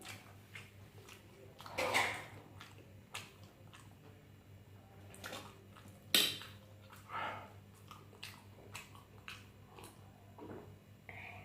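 Close-up eating sounds: chewing and mouth smacks with small clicks and knocks of cutlery or a plate, including a louder one about two seconds in and a sharp clack about six seconds in.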